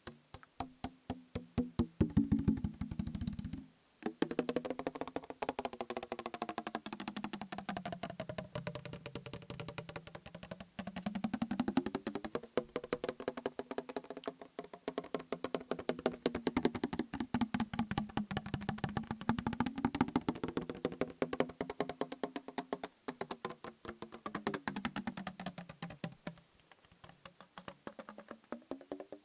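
Rapid fingertip tapping on a plastic bottle partly filled with liquid, a quick, even run of hollow taps. The pitch of the taps slowly slides up and down, with a brief pause about four seconds in.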